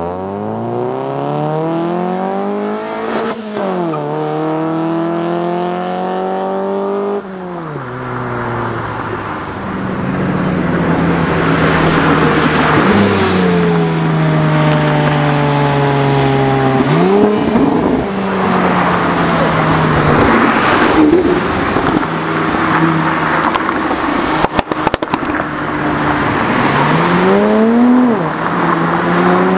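Sports cars accelerating hard one after another. Each engine's pitch climbs and then drops sharply at each upshift, about five times in all.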